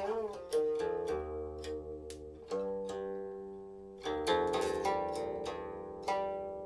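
Silk-string guqin, a seven-string Chinese zither, played solo. A note slides in pitch just after the start and then rings on. About four seconds in, a cluster of fresh plucked notes follows.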